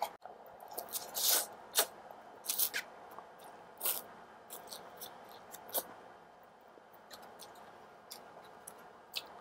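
Close-up eating sounds: noodles slurped and chewed, with a run of short wet mouth clicks and a few longer slurps.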